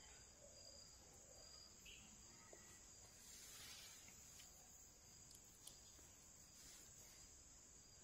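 Near silence: only a faint, steady high-pitched hiss.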